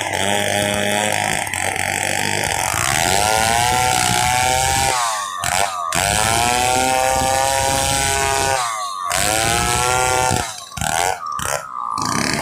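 Stihl 070 two-stroke chainsaw running at high revs while sawing a log lengthwise into planks; its pitch sags and recovers several times, with a few brief breaks in the sound.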